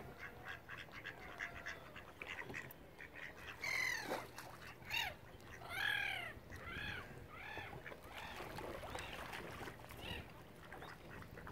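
Waterbirds calling. Quick short notes come in the first few seconds, then louder harsh arched calls from about four seconds in, and a run of them under a second apart that fade toward the end.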